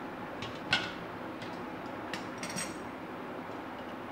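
Metal clinks and clanks of an aluminium cake tin and metal tongs being handled, a handful of sharp knocks with the loudest under a second in and a short high metallic ring about two and a half seconds in. There is a steady background hiss.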